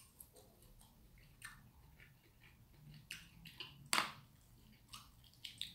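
Quiet mouth sounds of someone chewing food, with scattered small clicks and a sharper click about four seconds in as wooden chopsticks work in a plastic lunchbox.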